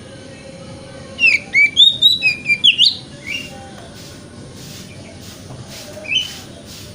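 Oriental magpie-robin (kacer) singing: a quick run of clear, sliding whistled notes that rise and fall, lasting about two seconds, followed by two single notes a little later.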